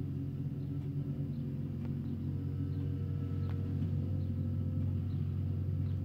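Steady low drone of the diesel engines of road-works machinery, a small ride-on tandem road roller and a backhoe loader, running at a constant speed, with a few faint clicks.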